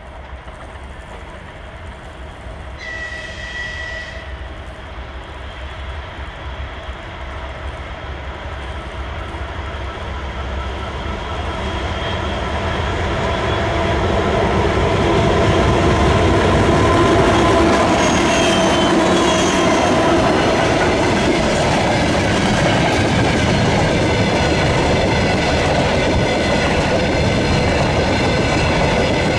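2TE116 twin-section diesel freight locomotive approaching with a long train of loaded hopper wagons. Its engine noise grows steadily louder until it passes about halfway through, then the wagons roll past at a steady level. A short, high horn note sounds about three seconds in.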